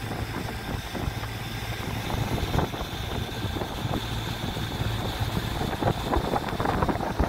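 Small boat's outboard motor running steadily under way, a constant low hum with a hiss of wind and water over it.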